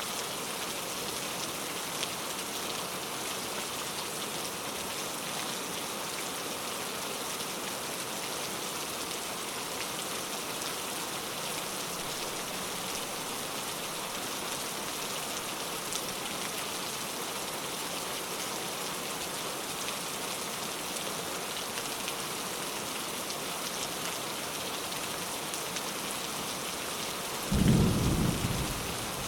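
Steady, even rain hiss, with a short low rumble of thunder near the end that is the loudest sound.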